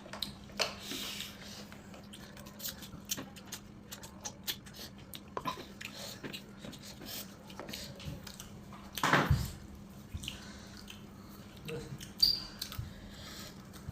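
Close-miked eating sounds: chewing, lip smacks and small mouth clicks, with one louder noise about nine seconds in, over a faint steady hum.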